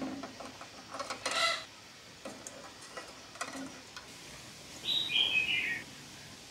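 Quail eggs clicking against each other and the stainless steel pot as they are set into shallow water, a cluster of clicks about a second in and a few lighter taps after. About five seconds in, a bird gives one short falling chirp.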